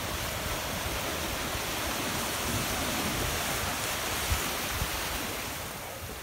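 Sea surf washing onto a rocky beach: a steady rush of small breaking waves, with some low wind rumble, easing a little near the end.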